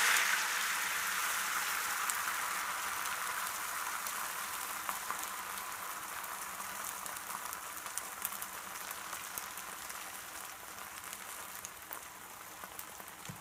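Beaten egg sizzling in a hot frying pan with a little olive oil, loudest just after it is poured in and fading steadily as the thin layer of egg sets, with scattered small pops.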